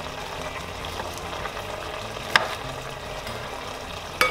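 Marinated pork frying in a pot with a steady sizzle, and a kitchen knife knocking twice on a wooden cutting board while slicing wild mushrooms, about two seconds in and again near the end.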